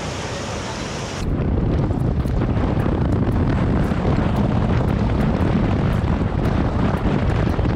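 Wind buffeting the microphone: a loud, steady rush of noise, heaviest in the low end, that gets louder about a second in.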